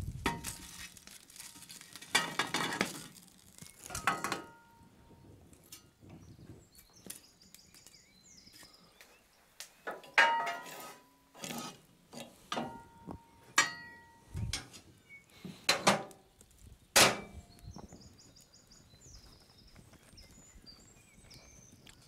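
Metal ember shovel scraping and clanking against a cast-iron wood stove and the lid of a cast-iron Dutch oven as glowing embers are piled onto the lid, so that the bread inside bakes from above as well as below. It comes as a string of separate scrapes and clinks, a few of them ringing briefly, over the first two thirds or so.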